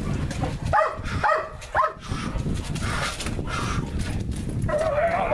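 A police dog barking three times in quick succession during bite-work training, with a wavering drawn-out call near the end.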